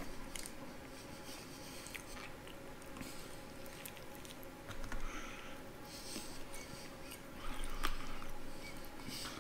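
Biting and chewing crispy breaded fried chicken close to the microphone: crunching of the fried crust and wet chewing, with louder crackly bursts about five seconds in and again around eight seconds.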